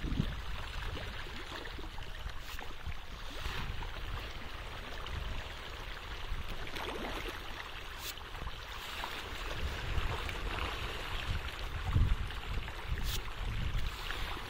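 Steady splashing and churning of water from a dense shoal of pangas catfish and tilapia feeding at the pond surface, with a few short sharp splashes. A few low thumps sound near the end.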